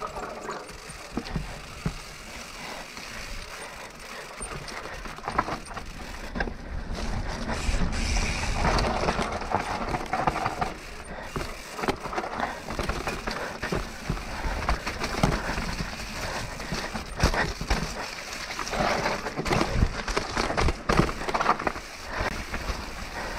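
Propain Tyee 29-inch mountain bike riding down a muddy bike-park trail: a continuous rush of tyre and rolling noise with frequent knocks and rattles of the bike over bumps, louder after the first several seconds.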